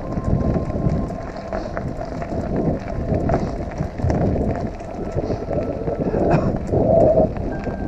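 Mountain bike rolling down a loose gravel fire road, its tyres crunching and rattling over stones, with wind rushing over the microphone.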